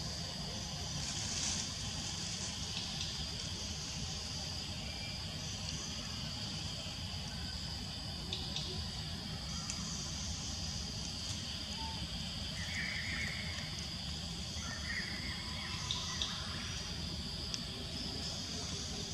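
Insects droning steadily in a high, unbroken tone over a low background rumble, with a few faint clicks.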